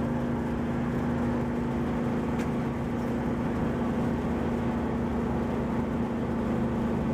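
331-cubic-inch Ford small-block V8 in a Mazda Miata cruising at a steady speed, heard from inside the cabin: an even engine and exhaust drone at constant pitch over road noise.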